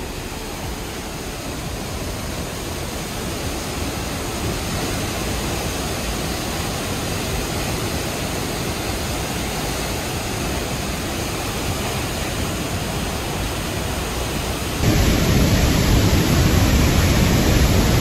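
Pailón del Diablo waterfall's rushing water: a loud, steady, even noise. About fifteen seconds in it turns abruptly louder and deeper.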